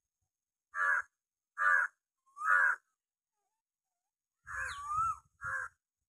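A crow cawing: three short caws about a second apart, then after a pause a longer call that wavers in pitch and one more short caw near the end.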